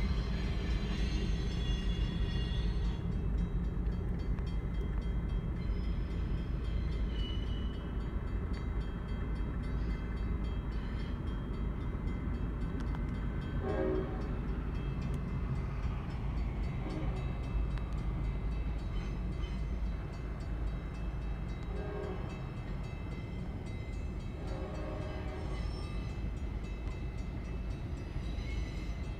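Freight train rolling past a grade crossing, heard from inside a car: an EMD GP38-3 diesel locomotive passes, then a string of railcars, with a steady low rumble of wheels on rail. A few short tones come through around the middle and later on.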